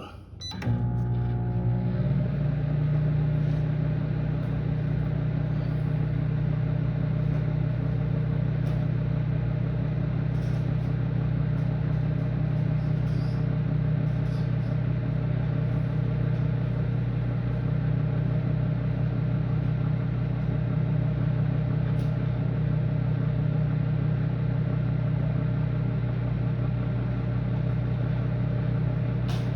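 Microwave oven starting up about half a second in, then running with a steady hum while it heats a load of Gushers candies.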